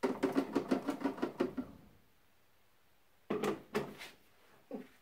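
Plastic blender jar being handled: a quick run of about ten light knocks in the first second and a half, then a few clunks about three seconds in as the jar is set back onto the blender's motor base.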